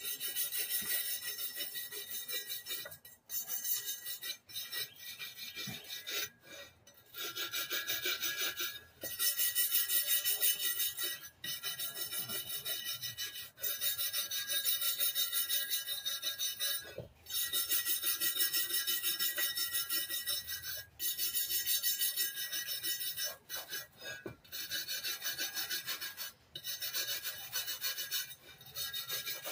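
Hand wire brush scrubbing the steel rim of a riding-mower wheel in quick back-and-forth strokes, a scratchy scraping that comes in runs of a few seconds with short pauses between them. The brushing takes off rust and rough spots around the bead edge so nothing can puncture an inner tube.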